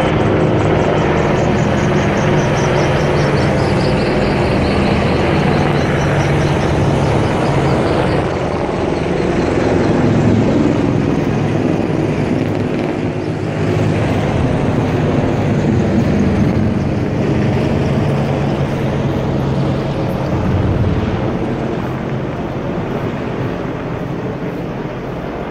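Several military helicopters flying low overhead: continuous rotor and engine noise with a high whine that falls in pitch over the first eight seconds as they pass, the sound slowly fading near the end.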